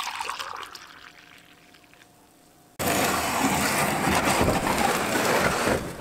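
A spoon stirring coffee in a mug, fading out within the first second and a half. About three seconds in, a loud, even rushing noise starts abruptly, runs for about three seconds and stops near the end.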